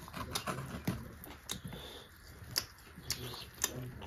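Close-miked eating sounds of pork and rice: wet chewing and lip smacks, with irregular sharp clicks about two a second and a few short low hums through a full mouth.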